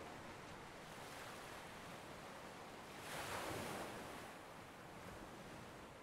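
Ocean waves washing onto a shore: a steady hiss of surf, with one wave swelling louder about halfway through and then falling away.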